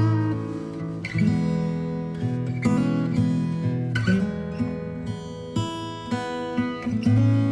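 Background music: acoustic guitar playing plucked and strummed chords that change every second or so.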